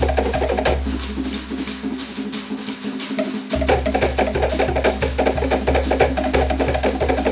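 Cook Islands drum ensemble playing a fast Manihiki/Rakahanga beat: wooden slit log drums rattling out rapid strokes over a deep bass drum. The bass drum and much of the rhythm thin out about a second in, then the full ensemble comes back in sharply about halfway through.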